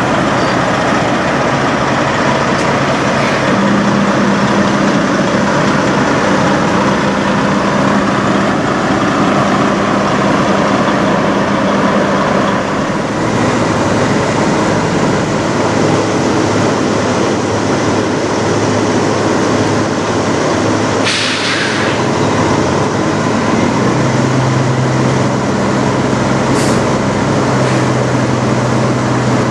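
Diesel engine of a Peterbilt 379 semi tractor running as the truck drives slowly across a lot, its low steady note shifting a couple of times. There is a short burst of air hiss about two-thirds of the way through.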